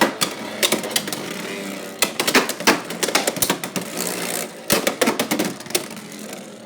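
Two Beyblade X spinning tops, Dransword and Hellsscythe, whirring in a plastic stadium. They clash again and again in rapid, irregular clicks and knocks.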